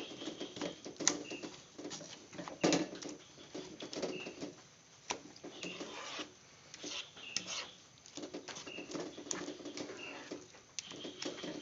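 A spatula scraping and knocking irregularly in a pan as thick durian pulp is stirred, the loudest knock about three seconds in. Short high chirps repeat every second or two.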